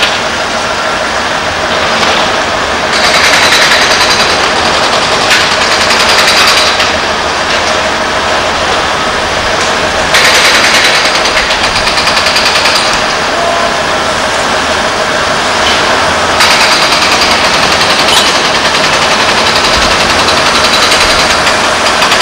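Diesel engines of demolition machinery, a skid-steer loader and a tracked excavator, running loud and steady with a rapid clattering pulse. The sound shifts in tone abruptly several times.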